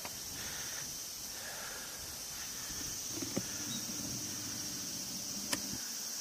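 Outdoor ambience dominated by a steady, high-pitched insect drone, with a few sharp clicks and a brief low rustle about halfway through.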